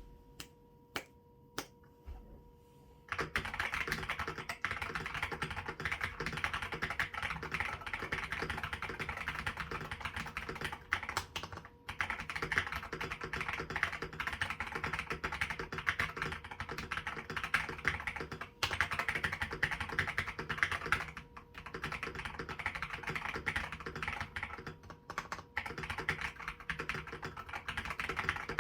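Typing on a Nexttime 75 gasket-mount mechanical keyboard with stock Akko CS Lavender switches, XDA keycaps, and case foam plus a PE foam mod. A few single keystrokes come first, then continuous fast typing starts about three seconds in, with a few short pauses.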